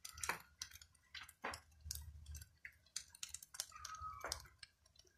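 Faint, scattered clicks and light taps, with a brief faint tone about four seconds in.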